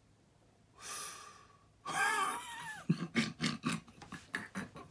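A man takes a sharp breath, lets out a short voiced sigh-like sound, then breaks into breathy laughter in quick bursts of about five a second.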